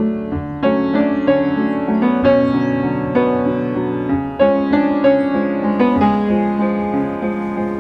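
Background music: piano playing a slow melody over sustained chords.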